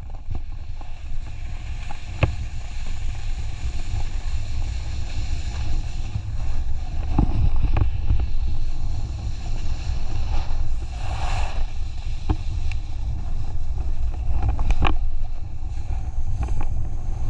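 Wind buffeting the microphone: a steady low rumble, with a few scattered knocks.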